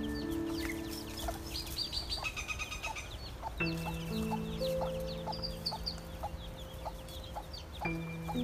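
Chicks peeping in many quick, high, falling chirps while a hen clucks in a steady low rhythm, over background music of held chords that change twice.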